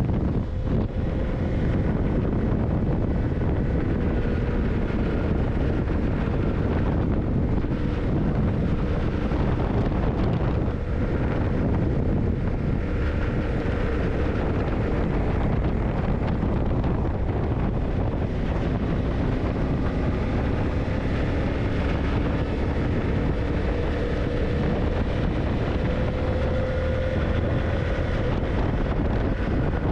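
Yamaha TDM900's parallel-twin engine running at a steady cruise, its note drifting slowly up and down, mixed with wind noise on the microphone.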